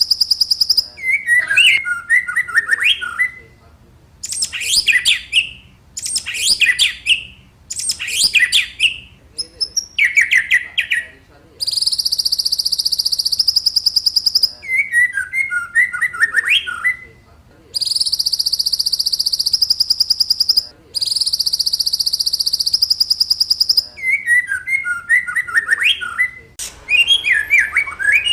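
Birdsong lure recording for the white-rumped shama (murai batu): loud, varied whistled phrases alternate with long, rapid, high buzzy trills lasting two to three seconds each.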